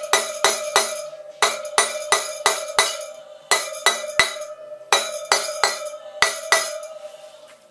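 Hammer blows on metal during motorcycle front-wheel-bearing work, in quick groups of three to five strikes about a third of a second apart, each leaving a steady metallic ring. The blows stop about a second before the end and the ring dies away.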